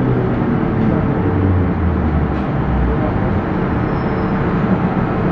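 Carriage noise inside an MTR M-Train running into a station: a steady, loud rumble of wheels and running gear, with a low motor hum that dies away about three seconds in.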